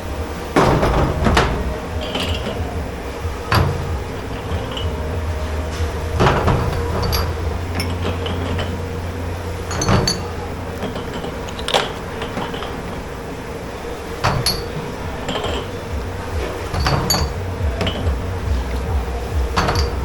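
Dishes, pots and cutlery being handled in a commercial dish pit: about a dozen irregular clanks and clinks, some ringing briefly. A steady machine hum runs underneath.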